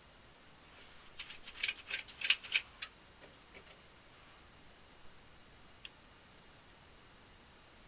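A rapid cluster of sharp, crackling clicks lasting about two seconds, then a single faint click a few seconds later.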